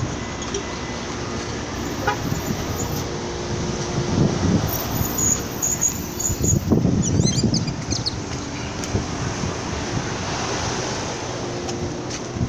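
Road traffic and a motor vehicle's engine running, with heavier low rumbles about four and seven seconds in.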